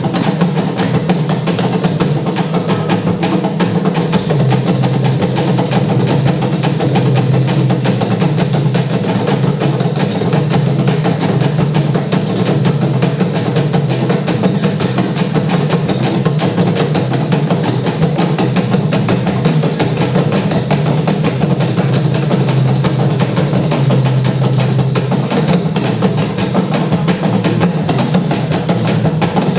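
Instrumental percussion music: drums playing a dense, steady rhythm over a constant low bass line, with no voice.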